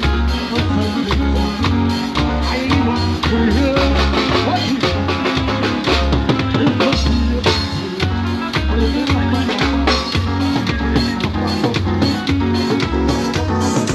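Live nine-night band playing through a sound system: keyboard and drum kit over a heavy, steady pulsing bass beat.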